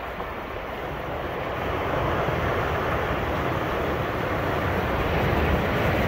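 Ocean surf washing onto a beach: a steady rushing noise with a deep rumble, swelling louder about two seconds in.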